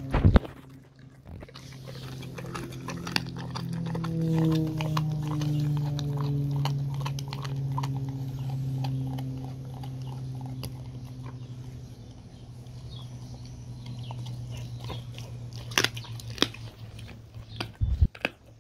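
A dog chewing and crunching a raw turkey wing, the bone cracking in many short sharp clicks. Underneath runs a low steady hum that swells about four seconds in and slowly falls in pitch.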